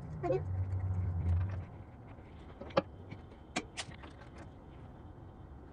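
A low rumble for about a second and a half, then a few light clicks and taps as the lower blade guide blocks under a benchtop band saw's table are handled and adjusted.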